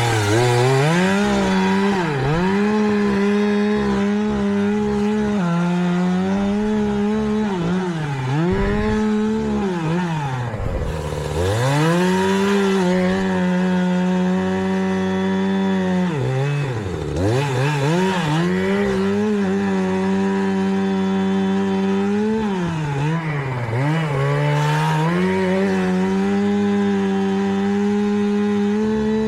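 Chainsaw running at high revs while cutting dead oak. The engine pitch holds steady for long stretches, then drops sharply several times, most deeply about ten and seventeen seconds in, and climbs back up each time.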